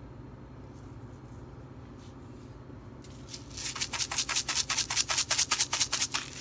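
Pepper mill grinding peppercorns over a bowl, a quick even run of rasping turns, about seven a second, starting about three seconds in and stopping just before the end.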